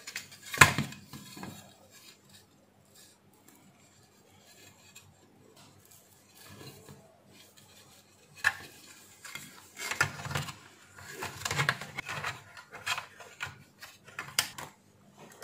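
Small plastic parts of a National Dream steam iron's cable lock and rear housing being handled and pressed into place: a sharp click about half a second in, a quiet stretch, then a run of clicks, knocks and rubbing in the second half.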